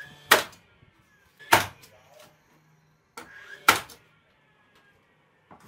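DeWalt cordless finish nailer firing three times, each a sharp crack, a second or two apart, with a faint motor whir between shots.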